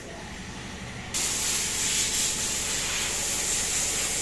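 A low steady hum, joined about a second in by a loud, steady, even hiss.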